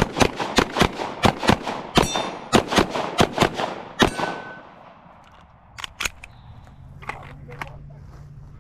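A rapid string of about fifteen gunshots fired in quick succession over about four seconds, a shooter's timed run on the range. About a second and a half after the string ends, two fainter bangs follow close together.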